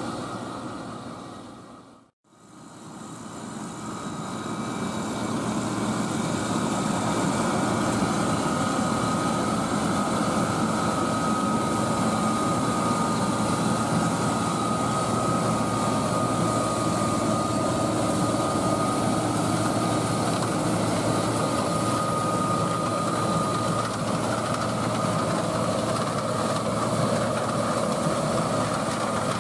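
John Deere 9650 STS combine running steadily while harvesting corn, a loud machine drone with a steady high whine over it. The sound dips away about two seconds in and builds back up over the next few seconds.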